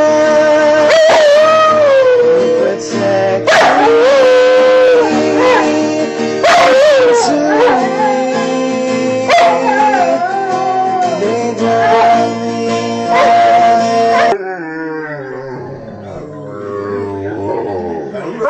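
A dog howling along with music, its wavering howl rising and falling over held instrumental notes. About fourteen seconds in the music stops and a dog whines, its pitch sliding downward.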